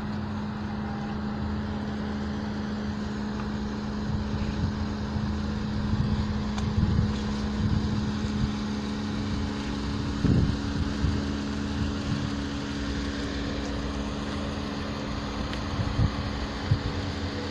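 A steady mechanical hum with an even low drone running throughout, and wind gusting on the microphone a few times, around the middle and near the end.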